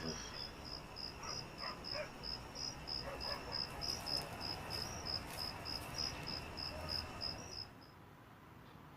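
Cricket chirping in an even run of about three high chirps a second, cutting off suddenly near the end.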